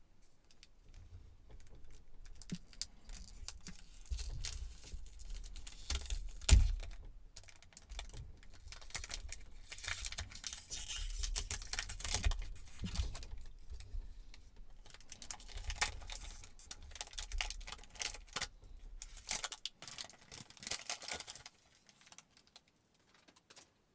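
A cardboard perfume box being opened and handled by hand: irregular rustling, scraping and small clicks, with one louder knock about six and a half seconds in. The handling stops a couple of seconds before the end.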